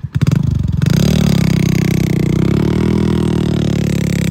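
Heavy diesel engine revved up from a slow, chugging idle right at the start, then held at high speed, running loud and steady with slight rises and falls in pitch.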